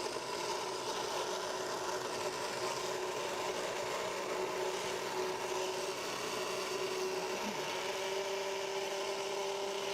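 Countertop blender running steadily with a whining motor, blending a thick smoothie with ice.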